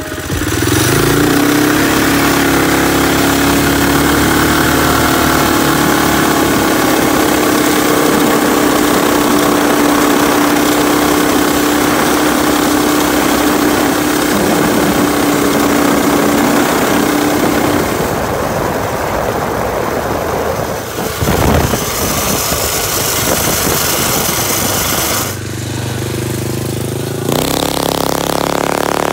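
Predator engine on a four-wheeler running at full throttle through a 30 series torque converter, its note holding at one steady pitch for a long stretch as the converter shifts up and the revs settle around 4,000 rpm. The sound changes about two-thirds of the way through, and the pitch climbs again near the end.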